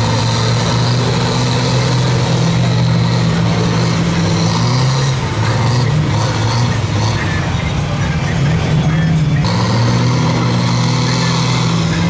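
Big diesel engines of lifted mud trucks running hard and steady, a deep drone whose pitch wavers up and down as they strain against each other.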